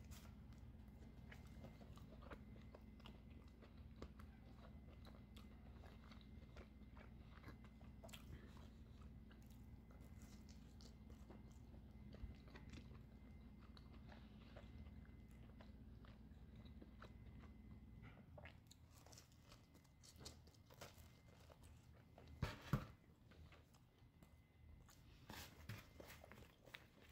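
A person biting and chewing pizza: faint, irregular mouth clicks and soft crunches of crust, with a louder crunch about three quarters of the way through. A low steady hum underneath stops about two-thirds of the way in.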